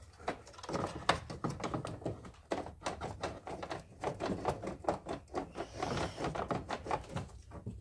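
Irregular rapid clicks and taps, several a second, of hands handling plastic engine-bay parts and the hood-release cable.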